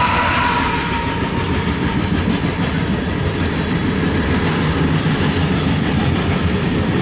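Loaded covered hopper cars of a CSX grain train rolling past close by, steel wheels rumbling and clacking over the rails. A held note of the locomotive's horn dies away about a second in.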